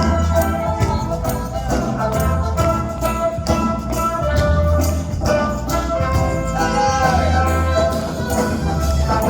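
Live band with brass playing an instrumental passage of a pop song, with a steady beat, tambourine and a pulsing bass line.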